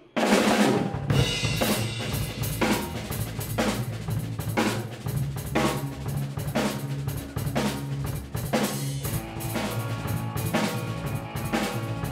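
Live rock band playing: a drum kit keeping a steady beat with kick, snare and cymbals over electric bass and electric guitar. The music kicks in abruptly at the very start.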